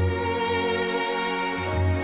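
Slow orchestral music with bowed strings, playing sustained chords over a pulsing low bass note; the chord changes near the end.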